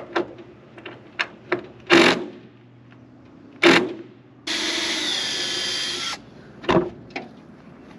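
Cordless drill running for nearly two seconds in the middle, its whine dipping in pitch partway through. Before it come several sharp knocks, two of them loud, and two more knocks follow it.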